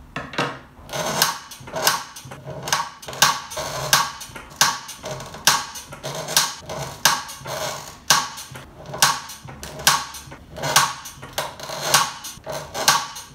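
Lever-operated corner-rounding punch cutting the corners of card notebook covers: a steady run of sharp clacks, about one and a half a second, each one the lever coming down and the blade cutting through the card.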